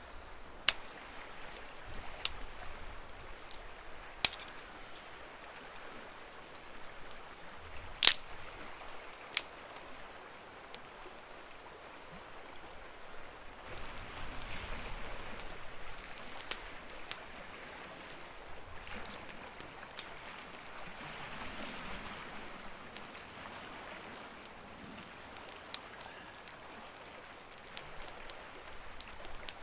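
Wood campfire crackling over a soft hiss, with sharp single pops: a few loud ones in the first ten seconds, then frequent small crackles in the second half.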